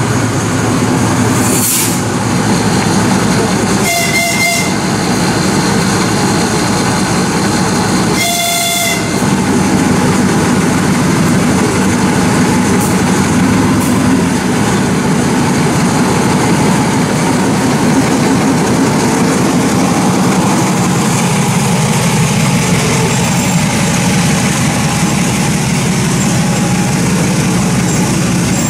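TU7A narrow-gauge diesel locomotive running as it arrives, sounding its horn in two short blasts about four and eight seconds in. The engine runs steadily and grows louder from about ten seconds in as the locomotive draws alongside.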